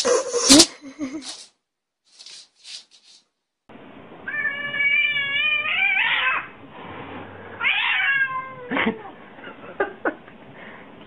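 A domestic cat meowing: one long drawn-out meow, then a shorter one and a couple of brief calls near the end. A sharp knock sounds within the noisy first second.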